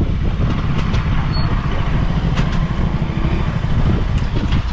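KTM motorcycle engine running steadily as the bike rides along, a continuous low rumble.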